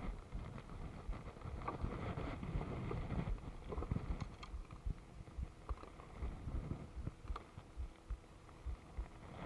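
Wind rumbling on the microphone, with scattered light knocks and clicks of fishing tackle being handled in a small boat.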